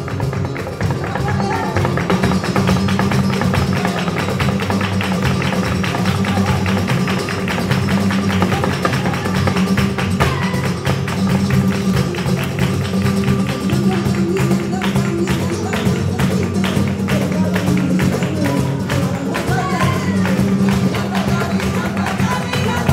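Live flamenco music: acoustic guitars strumming over dense, rapid percussion of hand clapping (palmas) and a dancer's footwork. A voice sings at times.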